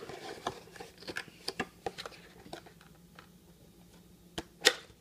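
Cardboard trading-card box being handled and opened: a scatter of light clicks, taps and scrapes, then two sharp clicks near the end, the second the loudest.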